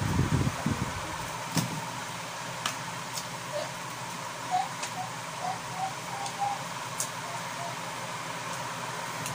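Quiet eating sounds over a faint steady hum: a few low thumps at the start, then small scattered clicks and crunches as slices of crisp green mango and apple are handled and bitten. In the middle comes a short run of faint clucks from a chicken.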